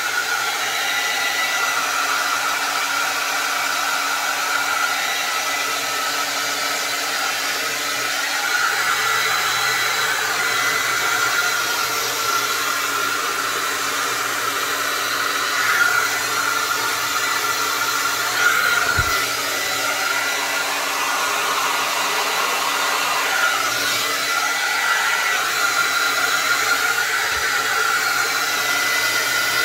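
Conair hand-held hair dryer running steadily: rushing air with a constant high whine. The tone wavers slightly as it is moved about, and there is one brief low thump partway through.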